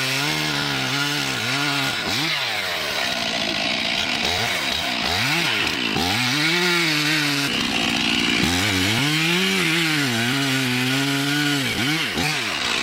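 Petrol chainsaw engine running under load, its pitch swelling up and dropping back again and again as the chain cuts into the wood.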